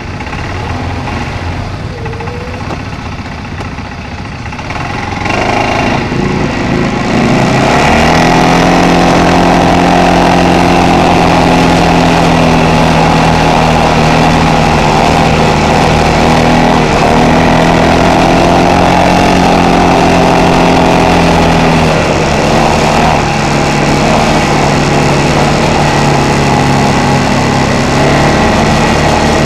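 ATV engine idling, then getting louder about five to seven seconds in as the machine pulls away, and running at a steady cruising note with road and wind noise. It eases off briefly about twenty-two seconds in.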